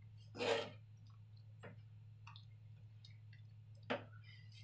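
Steel spoon stirring thick, creamy dal makhani in a non-stick pan. There is a soft squelch about half a second in, then a few faint clicks of the spoon against the pan, the sharpest just before the end.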